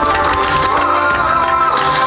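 Music, a song with guitar, playing steadily; no firework bursts stand out above it.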